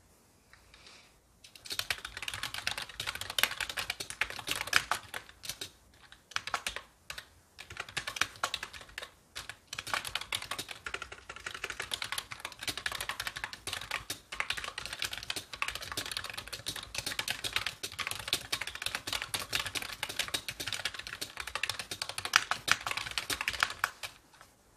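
Fast typing on a computer keyboard: dense, rapid key clicks that start about a second and a half in, break off briefly a few times, then run on in a steady stream.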